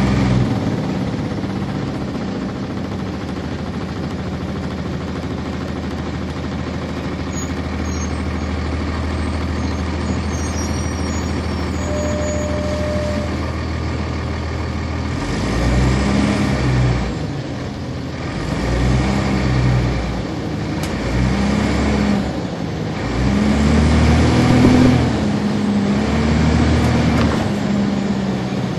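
Cummins ISC diesel engine of a 1999 NovaBus RTS transit bus, heard from inside the bus. It runs at a steady drone for about fifteen seconds, then revs up and falls back several times, rising and dropping in pitch as the bus moves off and the ZF automatic transmission shifts.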